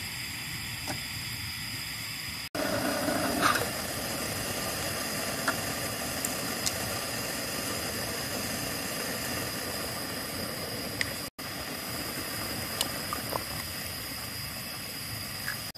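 Camping stove burner hissing steadily under a pot of boiling water, with a few light clinks and plops as food goes into the pot. The sound drops out for an instant twice and is louder after the first dropout.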